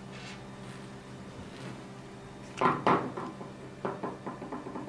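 Two sharp knocks, then a run of lighter clicks and taps, as a metal bow riser, screws and a screwdriver are handled and set down on a wooden tabletop.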